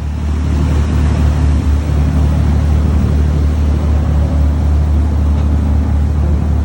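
Motor yacht's engine running steadily: a loud, even low drone with a hiss of noise over it.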